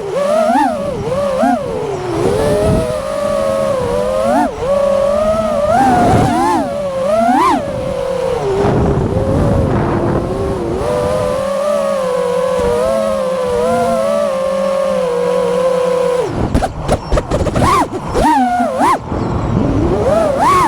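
FPV quadcopter's brushless motors whining, the pitch swooping up and down with rapid throttle changes, holding steadier through the middle and swinging sharply again near the end.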